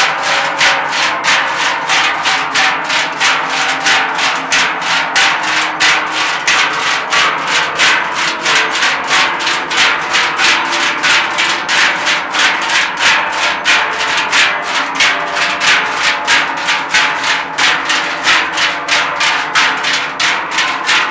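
Trychle, large Swiss cowbells of hammered sheet metal, swung in unison by a group marching, clanging together in a steady rhythm of about two to three strokes a second over a continuous ringing.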